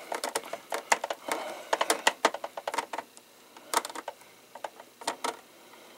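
Hand screwdriver driving a screw into the plastic case of an APC Back-UPS BN450M: a run of irregular small clicks as the screw threads in, thinning out after about three seconds.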